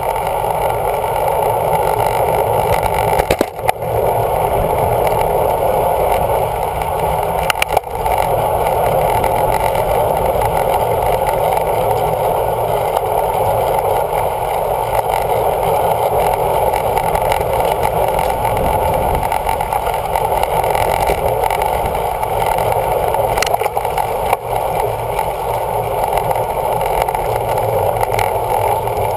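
Steady rushing wind and road noise on a bicycle-mounted camera's microphone while riding in a racing pack, with a few brief knocks.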